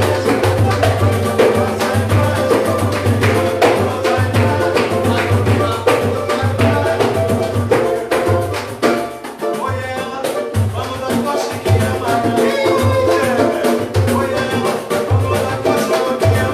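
Samba played live by a band: dense percussion with a shaker over a steady, deep drum beat, with pitched instruments above, dipping briefly about halfway through.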